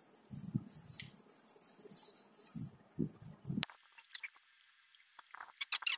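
Plastic packaging rustling and crinkling in the hands, with soft handling bumps, as a pair of socks is taken out of its wrapper. The sound cuts off abruptly about two-thirds of the way through.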